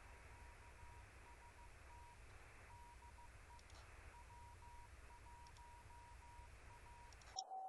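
Very faint Morse code: a single steady beep keyed on and off in dots and dashes, over low hiss and hum. Near the end a brief, slightly lower tone sounds.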